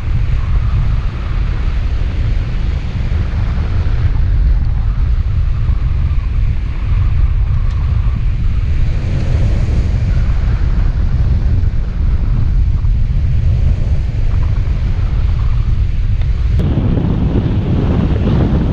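Wind buffeting the microphone: a loud, steady low rumble of rushing air that grows fuller near the end.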